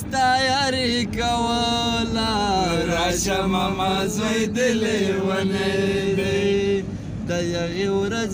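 Men singing together in a moving car: long held, wavering notes with slow slides in pitch, over the car's low running rumble.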